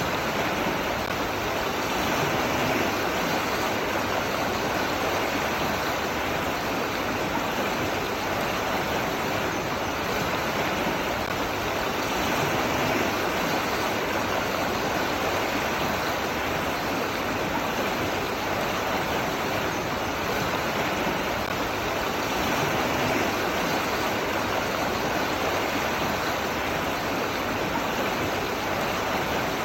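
Running water: a steady, even rush with no breaks or changes.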